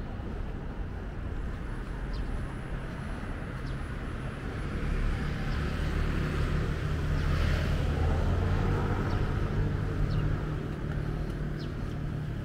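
A motor vehicle passes close by: its low engine hum and road noise swell to their loudest about halfway through and fade again, over steady street noise.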